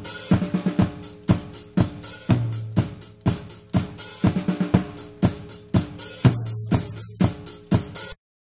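Recorded drum kit playing a steady beat with kick, snare and hi-hat, the main hits about two a second, cutting off suddenly near the end.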